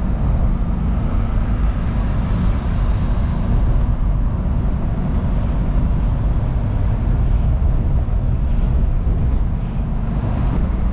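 Volkswagen Kombi van driving at a steady speed, heard from inside the cab: a constant low engine and road rumble.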